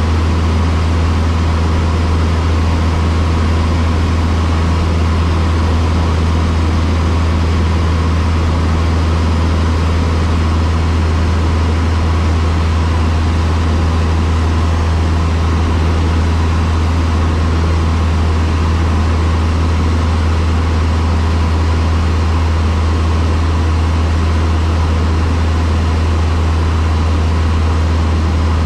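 Cessna 152's four-cylinder Lycoming O-235 engine and propeller running at a steady power setting: a loud, even, low drone that does not change.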